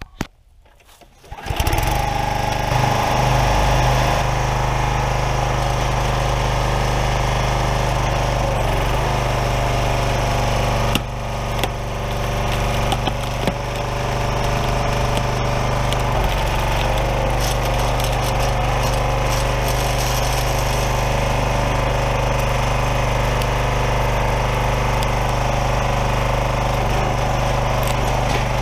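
Craftsman 27-ton log splitter's small gas engine pull-started, catching about a second and a half in and then running steadily. About 11 seconds in, the engine's note changes as it takes the load of the hydraulic ram, and a few sharp cracks follow as the big round splits.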